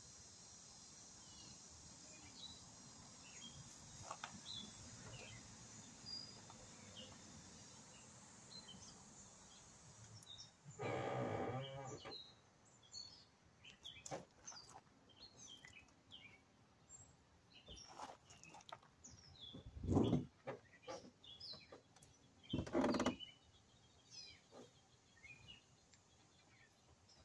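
Small birds chirping, many short high calls. A few louder sounds stand out: one lasting about a second, then two shorter ones later.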